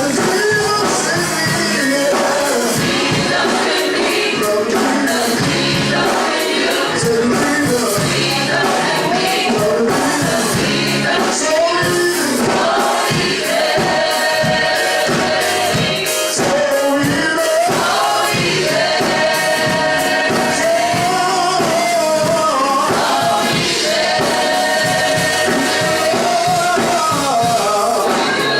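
Gospel choir singing over band accompaniment with a steady beat, with long held notes in the middle.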